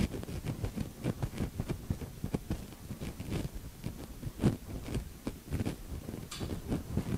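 Marker writing on a whiteboard: a quick, irregular run of short taps and scratchy strokes as figures are written out.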